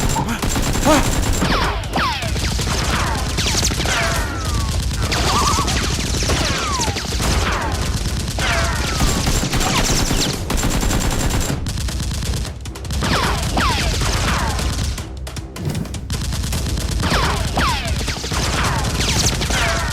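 Sustained gunfire sound effects: rapid bursts of automatic shots with many short falling whistles like ricochets, easing briefly twice past the middle.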